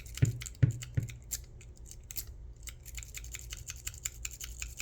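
Lock pick and tension tool working in a Scorpion Security phone display lock: light jiggling, giving many small, irregular metal clicks and scratches, with a few low knocks in the first second.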